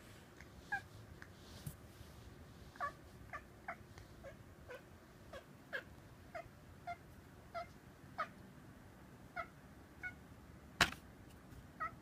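A cat chirping at a bird it is watching: about seventeen short chirps spaced irregularly, roughly one every half second. A single sharp click near the end is the loudest sound.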